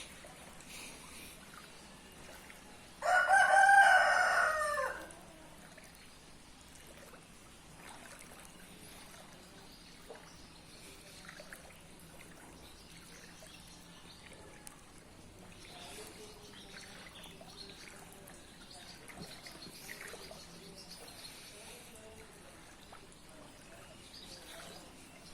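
A bird crows once, loudly, for about two seconds, about three seconds in; the rest is faint background noise.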